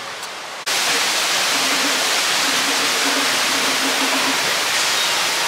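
Loud, steady rush of falling water, cutting in suddenly just over half a second in and holding evenly.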